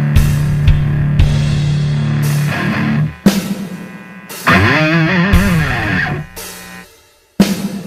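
Heavy rock instrumental: distorted electric guitar holding a low note over drum hits, then two struck chords about a second apart, the second with a wavering, bending pitch that dies away. It fades to almost nothing before a new hit comes in near the end.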